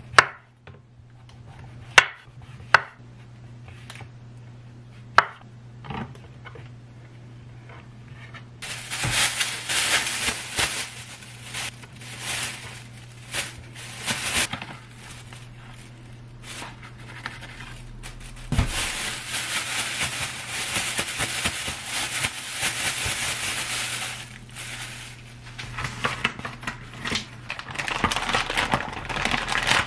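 A chef's knife cutting through a king oyster mushroom on a wooden cutting board, with four sharp knocks of the blade on the board in the first six seconds. Then plastic bags crinkling and rustling for long stretches as they are handled.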